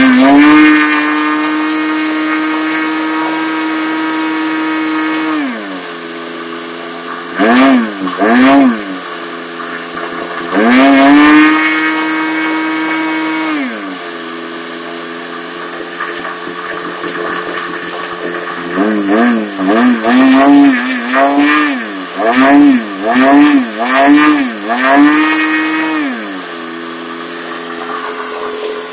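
Small model engine of a homemade R/C boat running at high revs right away, dropping back to idle, then revved by the throttle again and again: two quick blips, a longer run up held for a few seconds, and near the end a quick string of about seven blips before it settles back to idle.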